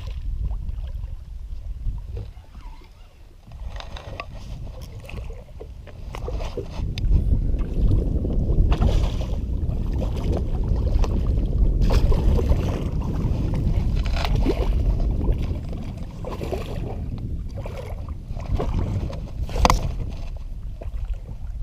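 Wind gusting on the microphone aboard a small shallow-water skiff, a rumble that swells and fades, with scattered light knocks and one sharper knock near the end.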